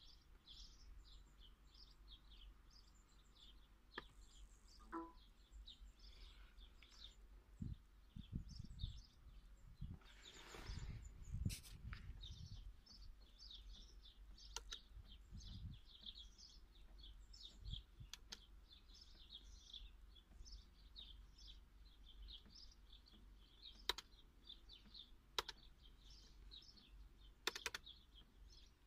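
Faint birdsong: many small birds chirping continuously, with a few sharp clicks scattered through and a brief low rumble about ten seconds in.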